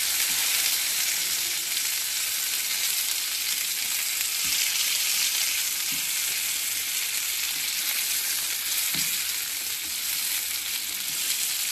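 Flour-dusted chicken roulades sizzling steadily in butter and olive oil in a non-stick frying pan, with a few soft taps of a slotted spatula as they are turned.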